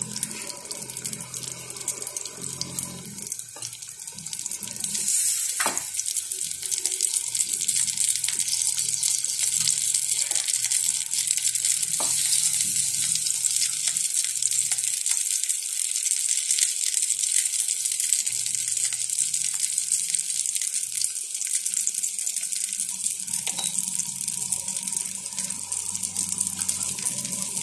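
Batter-coated pumpkin flowers shallow-frying in hot oil in a nonstick pan: a steady, high sizzle that grows louder about five seconds in, with a couple of light clicks.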